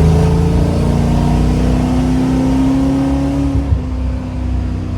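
1971 Dodge Charger's engine accelerating, its pitch climbing steadily for nearly four seconds before dropping suddenly as it comes off the throttle or shifts.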